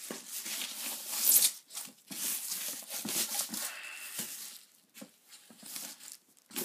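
Thin plastic protective bag rustling and crinkling in irregular bursts as a monitor is slid out of it, loudest about a second in.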